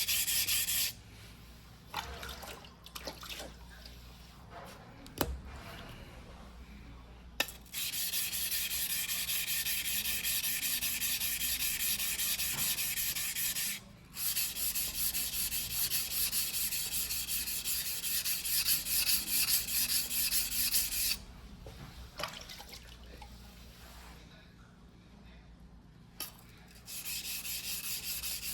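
Steel blade of a white-steel #2 yanagiba being ground by hand on a whetstone: fast back-and-forth scraping strokes in runs of several seconds, broken by quieter pauses with a few light knocks.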